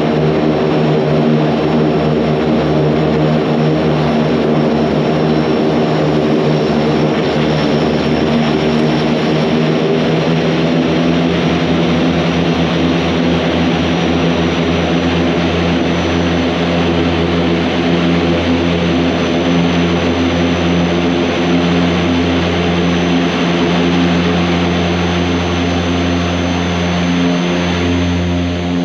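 Antonov An-26's twin Ivchenko AI-24 turboprop engines and propellers running at high power during the takeoff roll, heard from inside the cockpit. It is a loud, steady drone with a hum of propeller tones under a heavy rush of noise.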